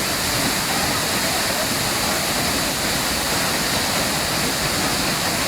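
Waterfall rushing in a steady, loud roar of falling water.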